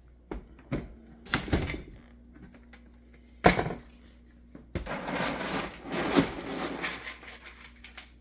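Kitchen handling noises while dog food is prepared: scattered clicks and knocks, a sharp bang about three and a half seconds in, then about two seconds of rattling and rustling.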